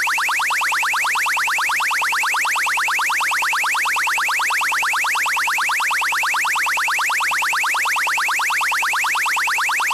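Electronic DJ horn sound-check tone: a fast, even string of rising chirps, several a second, repeating without a break at steady loudness.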